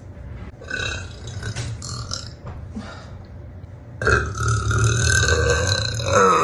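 A woman burping deeply. A rougher, quieter burp lasts a couple of seconds, then a longer, louder burp starts about four seconds in.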